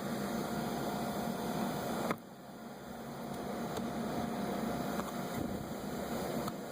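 Steady background hiss and hum with a few faint clicks. The level drops suddenly about two seconds in and slowly builds back up.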